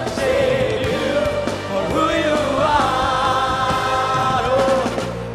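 Live gospel praise-and-worship music: a band playing under voices singing long held notes.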